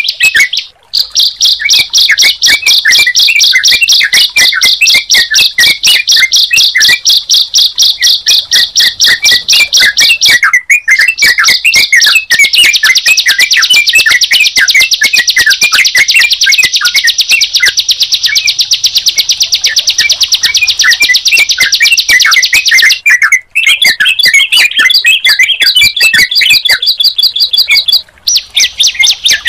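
Songs of a ciblek (bar-winged prinia) and a trucukan (yellow-vented bulbul) played together: a very fast, high trill runs almost without a break, with scattered lower chirps beneath it. The trill breaks off briefly about a second in, twice around the middle and twice near the end.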